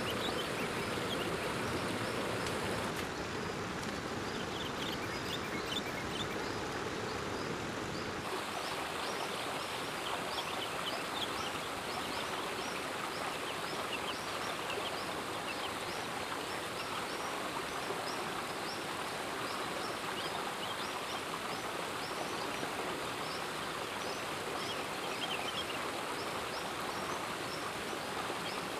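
Steady rushing of a forest stream, with short high chirps scattered through it. The deeper part of the rush drops away about eight seconds in.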